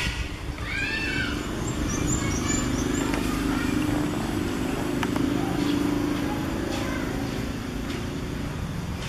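A steady low drone, like a distant motor, grows stronger through the middle and eases off near the end, under a few high arching chirps about a second in.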